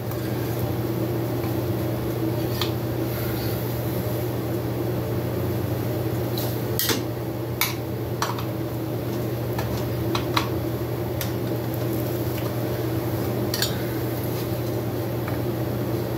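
Scattered light metallic clinks and taps of hand tools and engine parts as the cylinder head of a 65cc two-stroke motorcycle engine is worked loose, over a steady hum.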